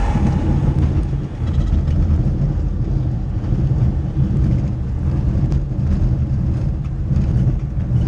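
A high-wing bush plane rolling out on a gravel beach after landing: a steady low rumble from its engine and its big tyres on the rough surface, heard from inside the cabin, with a few light knocks.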